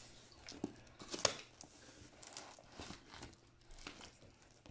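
Box cutter slitting the packing tape on a cardboard box, with the tape tearing and the cardboard scraping and rustling as the box is handled and tipped: a run of faint scrapes and taps, the sharpest about a second in.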